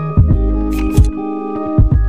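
Background music with held chords over a steady drum beat.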